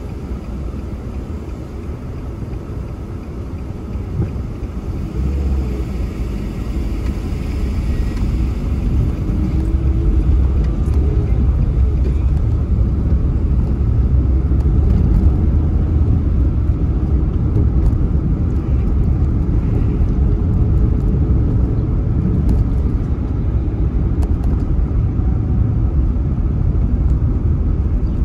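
A car driving, with a steady low rumble of engine and road noise that grows louder about five seconds in.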